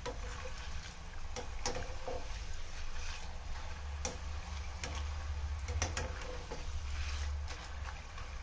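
Banana slices deep-frying in hot oil with a light sizzle, while a metal slotted skimmer stirs them and clicks against the steel pan about eight times. The sizzle is dying down as the slices' water cooks off, the sign that the chips are nearly done.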